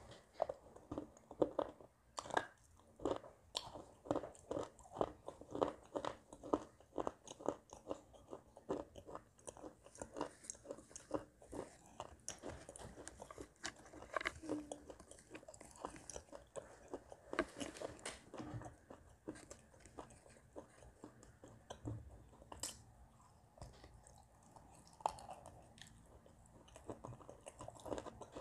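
Close-up crunching of a person biting and chewing crumbly lumps of baked clay, with many sharp crackles packed closely together for roughly the first half and fewer, more spread-out crunches after.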